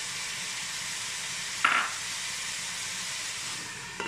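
Sliced onions frying in hot oil in a pan, sizzling steadily, with one short clink about two seconds in and a click at the very end as a glass lid is set onto the pan.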